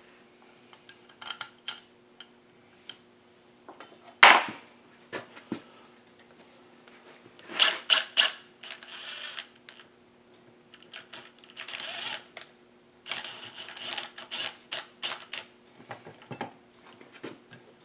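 A cordless driver runs case screws into a Husqvarna 372 chainsaw crankcase in short bursts, setting the screws that align the two case halves. Clicks of screws and tools come in between, with one loud knock about four seconds in, over a faint steady hum.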